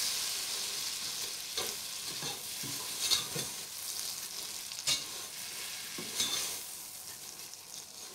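Vermicelli frying in butter in a nonstick pot: a steady sizzle while a plastic slotted spoon stirs and tosses the strands, with a few sharper scrapes along the way. The sizzle thins toward the end.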